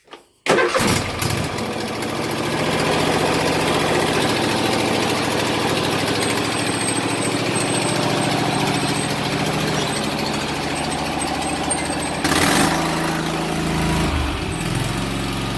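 Husqvarna riding lawn mower engine starting about half a second in, then running steadily. Its note changes about twelve seconds in.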